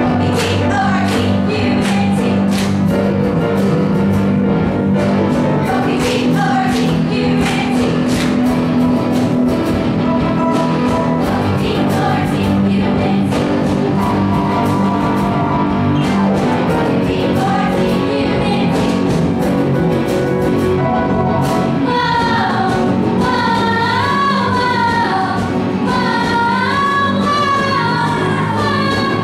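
A song playing loud, with a steady beat and singing; the sung melody comes forward strongly about three-quarters of the way through.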